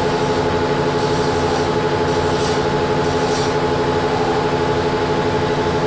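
Weiler Matador metal lathe running under power, its geared headstock giving a steady multi-tone hum, with faint scraping as a hand file is worked against the spinning workpiece to take off a sharp corner. The hum cuts off near the end as the lathe is stopped.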